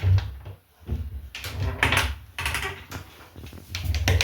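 A kitchen cupboard being opened and its contents handled: irregular knocks, clicks and clatter with low thuds, loudest near the end.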